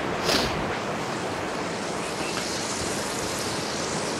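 Sea waves washing over and breaking against offshore rocks in a steady rushing wash, with one brief louder rush about a third of a second in.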